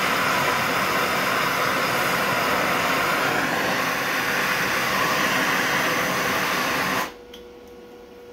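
Handheld gas torch burning with a steady hiss as its flame preheats a steel part before welding; the flame is shut off about seven seconds in.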